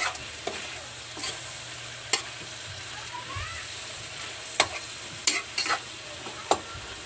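Metal spatula stirring shrimp in a wok, scraping and knocking against the pan about seven times, over a steady sizzle of the shrimp frying in their sauce.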